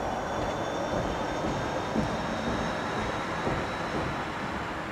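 Steady vehicle noise from passing traffic, with a faint high whine slowly falling in pitch and a few light knocks.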